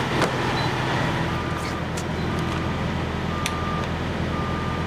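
A truck's backup alarm beeping, about one short beep a second, starting about a second in, over the steady low running of an idling semi-truck diesel engine.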